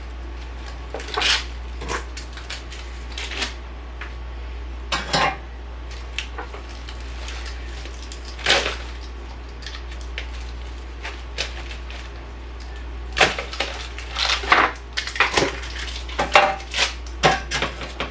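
Kitchen clatter of dishes, pans and utensils knocking and clinking: a few separate clanks, then a busier run of them about thirteen seconds in.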